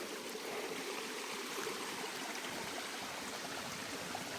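Small stream flowing steadily, a low, even rush of water.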